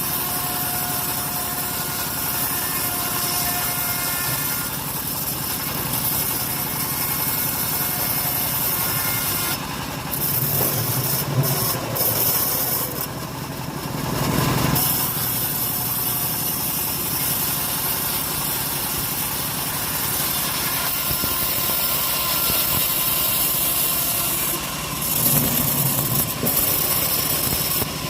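The engine of a homemade sawmill saw runs steadily while the blade cuts through an old teak log. The cutting gets louder and harsher about ten to fifteen seconds in, and again near the end.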